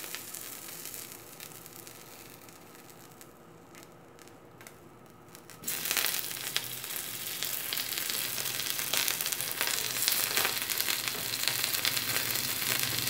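Small whole fish sizzling on a hot ridged grill pan as they are laid on it one by one. The sizzle fades over the first few seconds, then jumps up sharply about six seconds in as another fish goes on, and grows louder toward the end.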